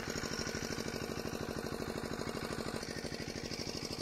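A small engine running steadily with a rapid, even putter of about a dozen beats a second.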